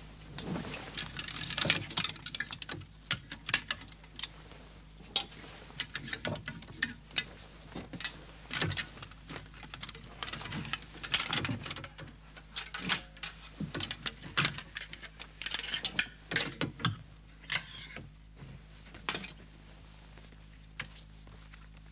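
Wooden clothes hangers with metal hooks clacking and scraping on a wardrobe rail as they are pulled off one after another with their clothes, mixed with fabric rustling. The clacks come thick and irregular at first and thin out near the end.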